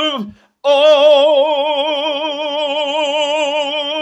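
A man singing unaccompanied. A short note falls away at the start, and after a brief pause about half a second in, he holds one long note with a wide, even vibrato: the closing note of the hymn medley.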